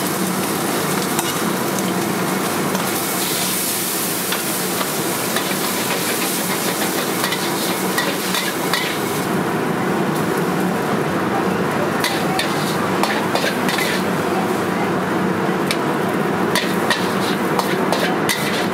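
Food sizzling in a hot steel wok, with a metal ladle scraping and knocking against the pan as it is stirred. About halfway through the sizzle dies down, leaving sharper scrapes and taps as the food is scooped out of the wok.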